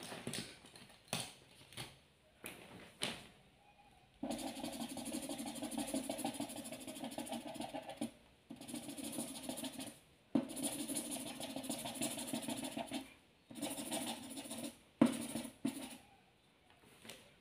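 Marker colouring on paper: after a few scattered taps and clicks, long stretches of steady rubbing strokes a few seconds each, broken by short pauses.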